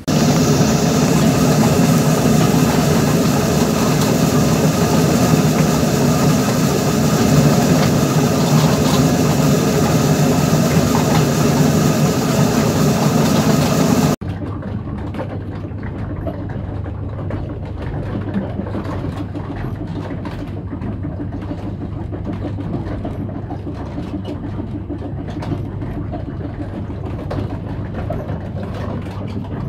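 Windmill's wooden gearing running: the spur wheel's cogs mesh with a wooden lantern pinion that drives a 10 kW generator, giving a loud, steady mechanical hum. About halfway through it drops to a quieter level with a fast, irregular clatter of clicks.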